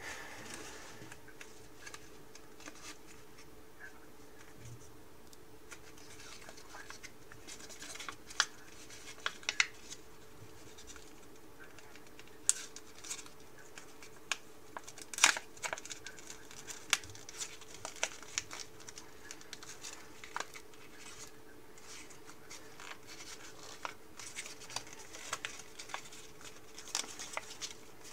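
Paper being folded and creased by hand: scattered crisp crackles and rustles, with one louder snap about halfway through and a busier stretch of rustling near the end.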